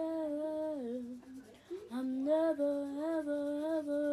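A child humming a tune without words, holding notes that step up and down, with a short pause about a second and a half in.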